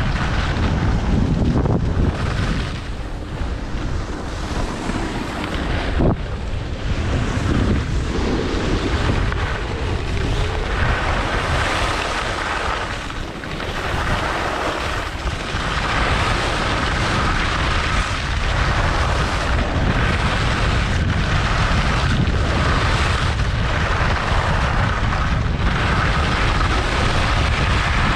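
Wind buffeting a GoPro's microphone while skiing downhill at speed, a steady rushing rumble mixed with skis sliding over groomed snow.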